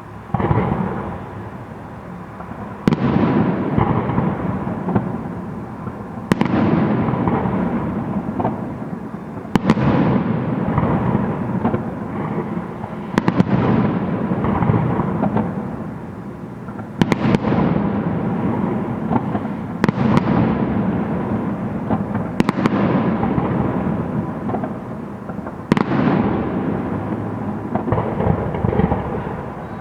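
Aerial fireworks shells bursting one after another, a sharp bang about every three seconds, each followed by a long echo that slowly dies away before the next.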